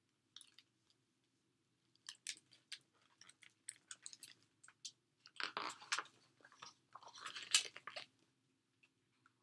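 A hardcover picture book being opened and its pages turned: scattered rustles and crinkles of paper and cover, with two longer, louder page-turning stretches near the middle and near the end.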